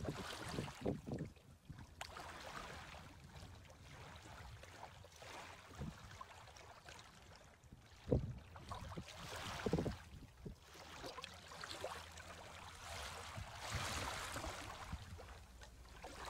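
Small waves of a calm sea lapping on a sandy shore, soft washes of water swelling and fading every few seconds, with a couple of sharper splashes of a wavelet breaking about halfway through.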